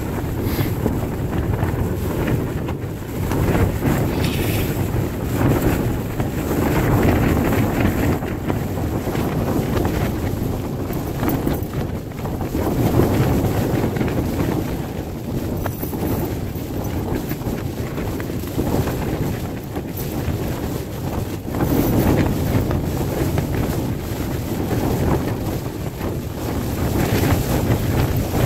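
Strong wind gusting against a tent, heard from inside: the nylon fabric flaps and shudders as the gusts swell and ease every few seconds.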